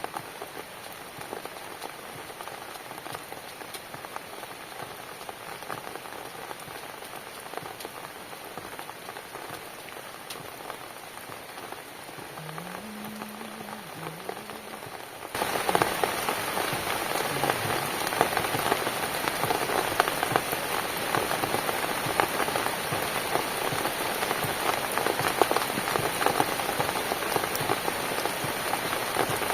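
Steady rain falling, an even wash of drops. About halfway through it abruptly becomes louder and brighter.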